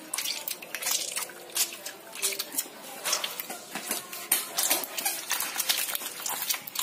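Wet squishing and dripping from hands kneading and rubbing softshell turtle intestines with lime juice to clean them, a run of short, irregular squelches.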